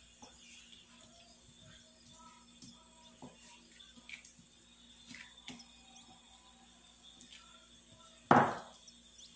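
Faint scattered taps of a kitchen knife against the tabletop while bread dough is cut into roll-sized pieces. Near the end comes one loud, short thump.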